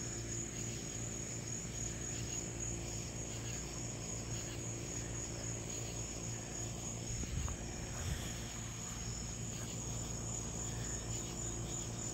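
A steady, high-pitched chorus of crickets, with a low rumble underneath.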